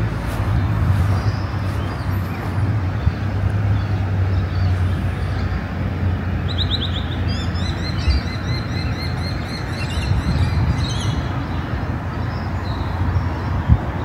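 Steady road-traffic noise, with a small bird chirping in quick runs of high notes between about six and eleven seconds in.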